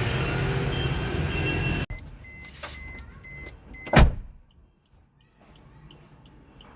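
Suzuki Ignis car's running noise cuts off abruptly about two seconds in as the engine is switched off. A single loud thud follows about four seconds in, like a car door being shut.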